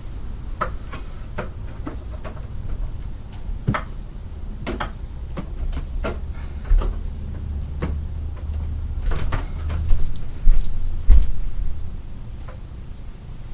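Scattered clicks and knocks over a low rumble, with a few louder thumps about two-thirds of the way in.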